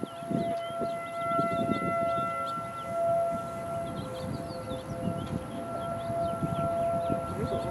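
Distant outdoor warning sirens sounding during the monthly siren test: several steady tones at different pitches that swell and fade. An irregular low rumble runs beneath them.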